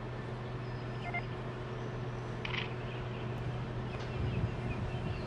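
A steady low mechanical hum over background noise, with a short beep about a second in and a few faint high chirps near the end.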